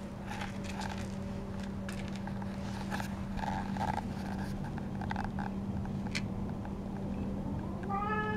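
A cat meows once near the end, a single call that rises and then falls in pitch. Under it runs a steady low hum, with scattered light scrapes and clicks earlier on.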